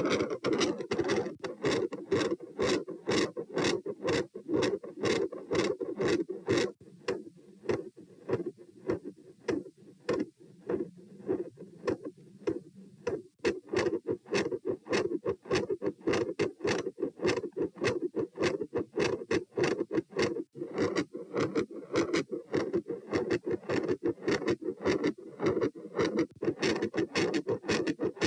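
A human heartbeat recorded at the chest: a fast, regular run of short beats. A continuous murmur fills the gaps between beats, fainter for several seconds in the middle.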